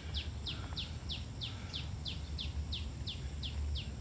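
A bird calling in an even series of short, falling whistled notes, about three a second, over a steady low rumble.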